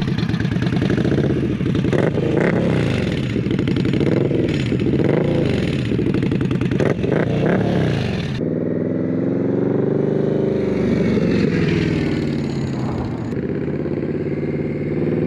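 Indian Scout's V-twin engine, loud through a Dean Speed Rampage slip-on exhaust, revved again and again in quick blips. About eight seconds in the sound changes suddenly to a smoother, steadier engine note, which dips and then rises in pitch near the end.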